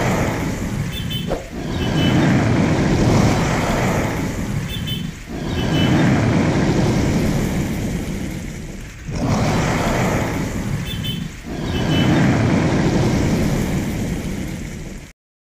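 Intro sound effect: a dense rushing roar that swells and fades about every four seconds, cutting off suddenly near the end.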